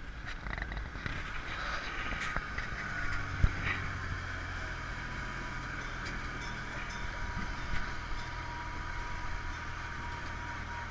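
Tractor engine running steadily as it tows open passenger wagons over a rough dirt track, with a thin steady whine, rattling from the wagons and one sharp knock about three and a half seconds in.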